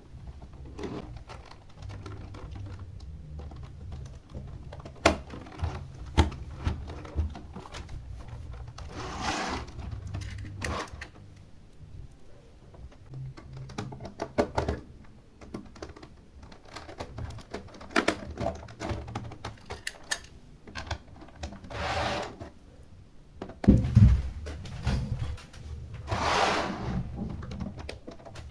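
Screws being driven into an HP keyboard's plastic back cover with a screwdriver: scattered clicks and knocks of plastic and tool handling, with a few rasping sounds about a second long as screws turn in.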